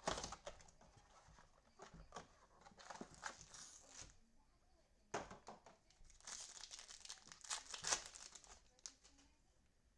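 Trading card pack wrappers crinkling and tearing as packs are opened and handled, in a few short bursts at the start, about three seconds in, and between six and eight seconds in.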